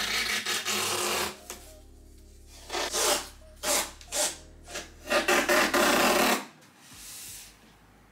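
Painter's tape pulled off the roll in rasping strips while taping desk drawers shut: a long pull at the start, a few short tugs, and another long pull about five seconds in.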